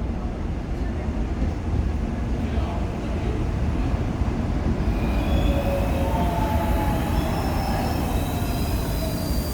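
Suin-Bundang Line electric train pulling into the station with a steady low rumble; from about halfway in, wheels and brakes squeal in several high tones, some sliding down in pitch as the train slows.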